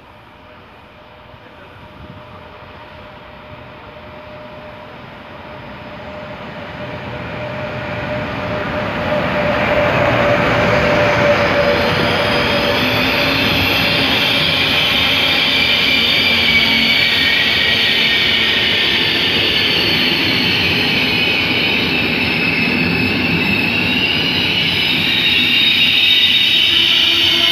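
Electric-hauled Intercity Notte passenger train approaching and running past along the platform. Its rail rumble grows steadily louder over the first ten seconds and then holds loud, with high squealing tones from the wheels on the rails over it from about twelve seconds in.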